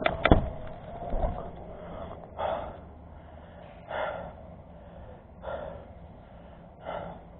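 A person panting hard, drawing four heavy breaths about a second and a half apart, after a few sharp knocks near the start.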